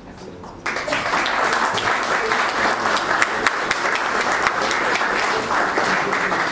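Audience applauding an award presentation: a dense, steady clapping that breaks out suddenly less than a second in and keeps going.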